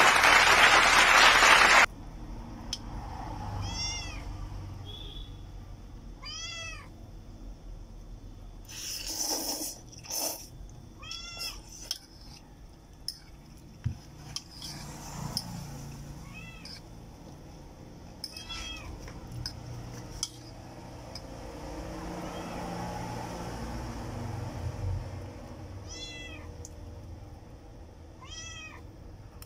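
A cat meowing again and again, short high meows every few seconds, with a few light clinks of a fork on a ceramic bowl. A loud rushing noise, like applause, fills the opening two seconds and cuts off abruptly.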